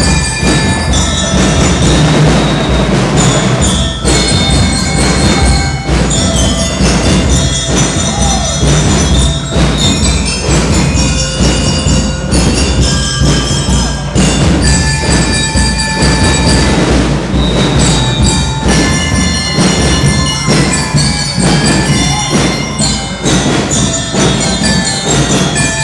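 School band playing: a melody in high, ringing bell-like notes over a steady drumbeat.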